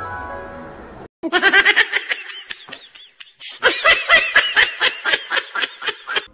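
The tail of a rising run of music notes, cut off about a second in. It is followed by high-pitched laughter, quick laughs several a second in two long fits with a short pause between them.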